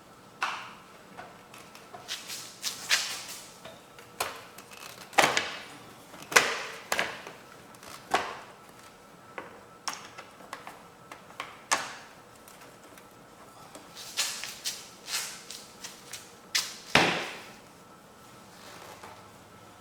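Irregular sharp clicks and knocks of hand tools and parts being handled while a lawnmower's cover is refitted and screwed down.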